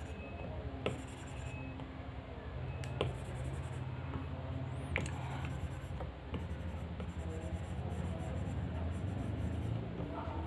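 Apple Pencil tip scratching and tapping on an iPad Pro's glass screen as strokes are drawn, with a few sharper taps, over a steady low hum.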